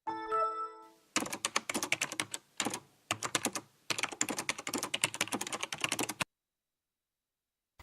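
A brief chime-like tone, then about five seconds of rapid clicking in four bursts with short gaps between them.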